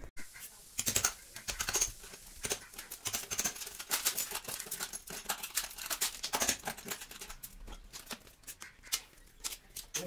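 Insulated electrical wires being handled and pulled at an open distribution board: a busy, irregular run of light clicks and rustles.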